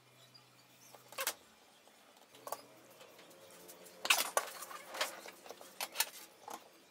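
Light clacks and taps of a steel rule and a metal speed square being lifted, handled and set down on a wooden workbench, a scattered handful of short knocks, loudest about four seconds in.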